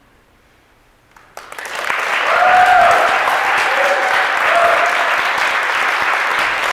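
Audience applause breaking out suddenly after a brief hush, building within half a second to full clapping, with a few cheering whoops over it.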